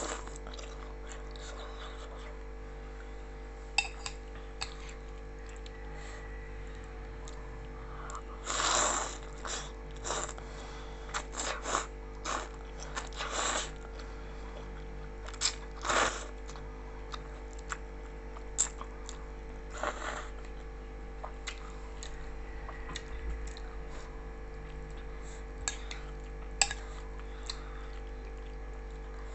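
A person eating black noodles close to the microphone: chewing, mouth clicks, and several short slurps, the loudest about a third and halfway in. A steady electrical hum runs underneath.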